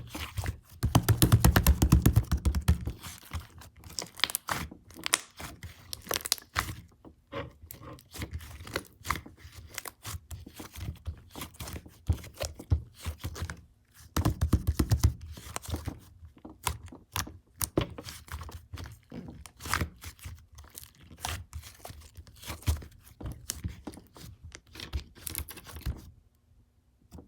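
Slime being squished and pulled by hand: sticky crackling, popping and tearing sounds in dense runs, busiest near the start and again about halfway through, stopping shortly before the end.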